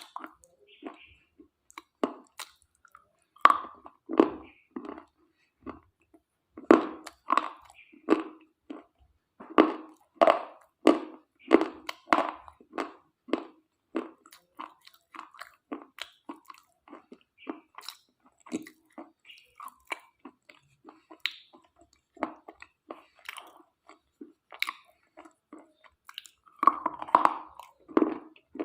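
A person biting and chewing brittle slate pieces close to the microphone: a run of sharp, crisp crunches, one to two a second, busiest in the first half and again in a cluster near the end.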